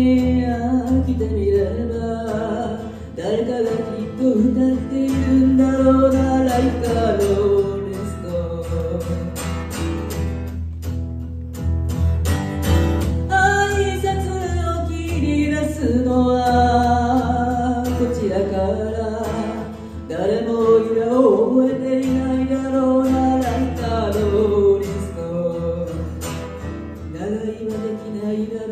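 A woman sings a slow pop ballad into a microphone, accompanied by a strummed acoustic guitar and heard through a small venue's PA. The voice pauses briefly about ten seconds in while the guitar carries on.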